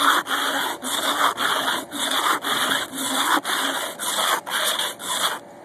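Tuna can held upside down and rubbed back and forth on a rough concrete parking stop, a gritty scraping at about two strokes a second, grinding through the can's rolled top seam to open it. The rubbing stops near the end.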